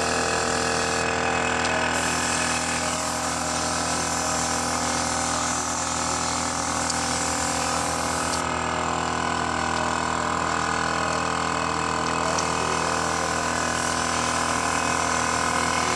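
An air compressor's motor runs steadily while a gravity-feed spray gun hisses as it sprays paint. The hiss eases off briefly about a second in and again for a few seconds past the middle.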